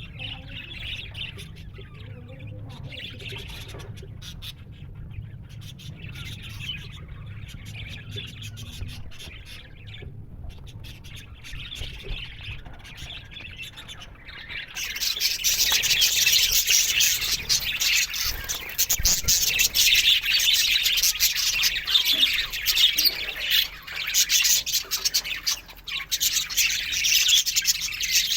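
A flock of budgerigars chirping and warbling. About halfway through it jumps abruptly to a much louder, denser chatter.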